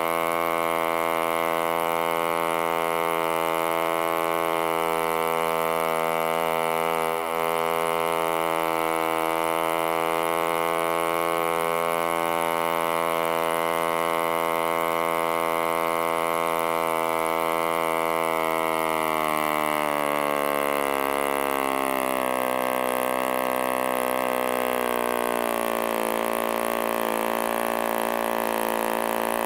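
1947 HP Series I 3.5 cc spark-ignition model aero engine running flat out, turning a 10x5 wooden propeller with a steady high-pitched buzz. About two-thirds of the way through its speed falls off and it runs on at lower revs.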